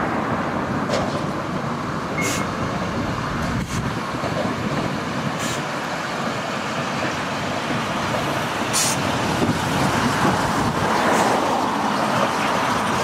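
Manx Electric Railway electric tram, motor car No. 33 hauling two open trailers, running along the track past the listener: a steady rumble of wheels and motors that swells as the cars draw close, with a few brief high clicks.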